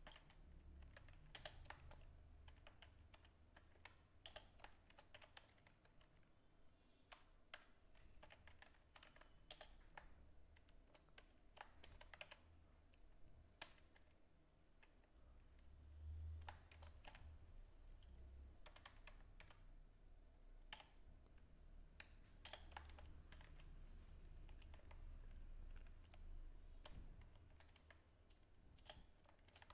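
Faint typing on a computer keyboard: irregular keystrokes in short runs, over a low steady hum.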